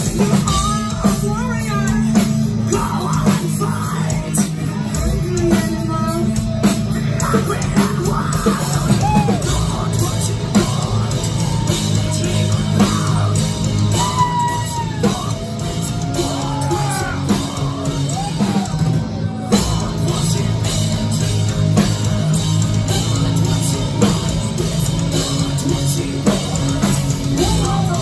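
Live heavy metal band playing loud: pounding drums and cymbals under a dense band sound, with a woman's sung vocals bending in pitch through much of it.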